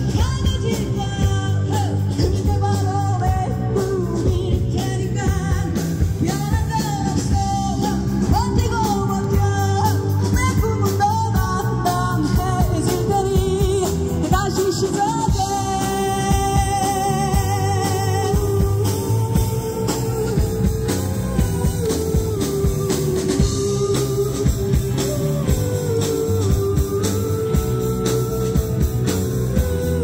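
Amplified live band playing a rock-style song: a singer carrying the melody over electric guitars, keyboard and drums with a steady beat.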